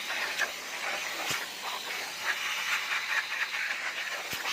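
A steady hiss, with a few light clicks of handling.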